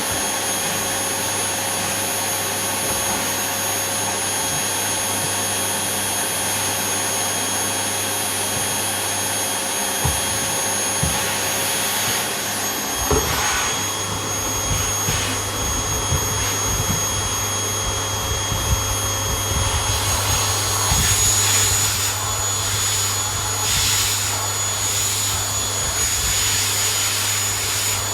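A vacuum cleaner running steadily, its motor giving a constant rushing noise with a thin high whine. A few knocks come about ten seconds in, and more frequent bumps and shuffles follow as the cleaner is moved about; the sound of the motor shifts slightly near two-thirds of the way through.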